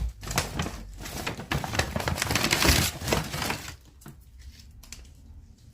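Plastic grocery packaging crinkling and rustling as it is handled, a dense crackle for about the first three and a half seconds, then only a few light ticks.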